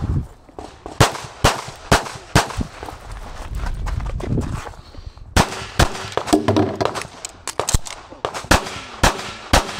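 Semi-automatic pistol firing a string of rapid shots, several a second, with a pause of about two seconds around the middle before the firing resumes.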